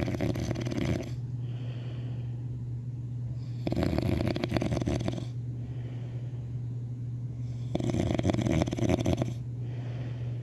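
Snoring in a slow, even rhythm: three rattling snores about four seconds apart, each lasting about a second and a half, with softer breathing between them.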